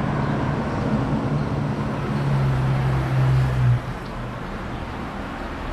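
Street traffic: a vehicle's engine hum builds over the first few seconds, then drops off abruptly about four seconds in, over steady road noise.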